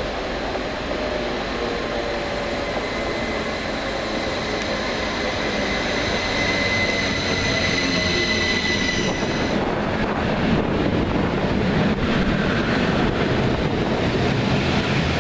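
Northern Rail electric multiple unit approaching and passing close by. A high steady whine builds as it nears and cuts off about nine seconds in. After that comes the louder rumble of its wheels on the rails as the carriages run past.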